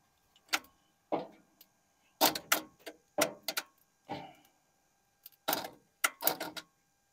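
Hands and tools working on a car's engine: about a dozen irregular sharp clicks and metallic knocks, some in quick pairs, with short gaps of silence between them.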